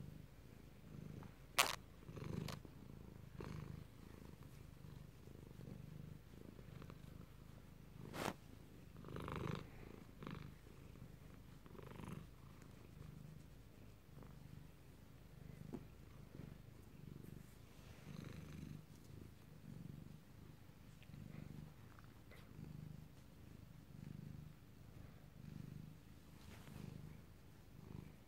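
A domestic cat purring steadily while being stroked on the head, the purr swelling and fading with each breath about once a second. A few sharp clicks cut in, the loudest about two seconds in and another about eight seconds in.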